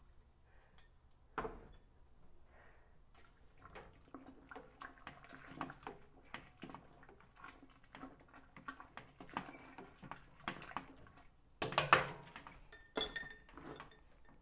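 A metal spoon clinking, knocking and scraping inside a stainless steel brew kettle as sugar is stirred into the wort. Scattered knocks run throughout, with a louder cluster near the end.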